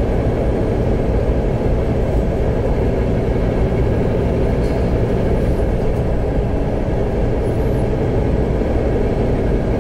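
Semi truck's engine and tyre noise at highway cruising speed, heard from inside the cab as a steady low drone.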